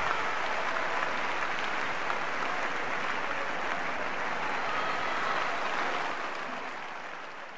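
Audience applauding, fading out over the last second or two.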